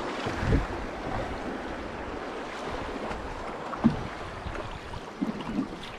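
Fast river current rushing and churning around an open canoe, with a few brief knocks and splashes, the loudest just before four seconds in.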